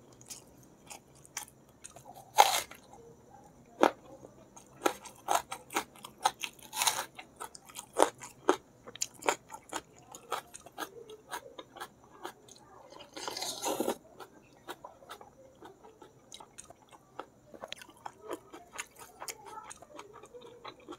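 Close-miked chewing of spicy balado squid and rice: a long run of wet mouth clicks and smacks at an irregular pace. One sharper click comes early on, and a longer noisy burst about thirteen seconds in.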